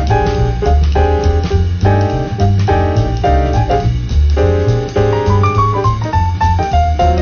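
Instrumental background music: piano chords over a bass line, with a melody stepping downward near the end.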